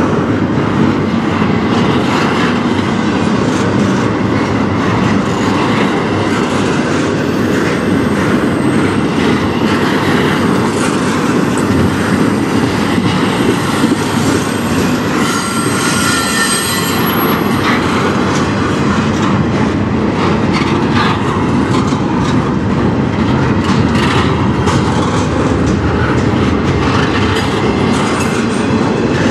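Double-stack intermodal freight train's well cars rolling past close by: a steady rumble of steel wheels on rail with scattered wheel clacks. A high wheel squeal rings out for about two seconds halfway through.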